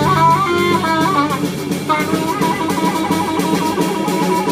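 Free jazz trio playing: a wavering reed line over plucked bass and busy drums.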